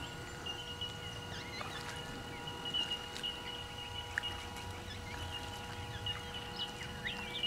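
RC Kingfisher seaplane's motor and propeller running at taxiing throttle, a steady whine. Birds chirp over it.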